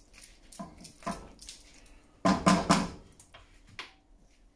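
Spoon stirring and scraping thick creamy pie filling in a frying pan, with a quick run of about three louder knocks against the pan a little over two seconds in.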